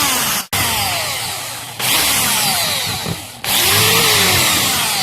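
A power tool whirring loudly in three or four long bursts, its pitch sliding as the speed shifts.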